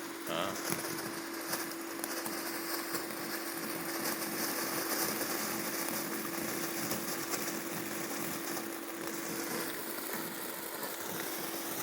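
Consumer firework fountain, the Phantom 'Oil Lamp', a low-noise item, burning with a steady spraying hiss and light crackle. A steady hum sits underneath.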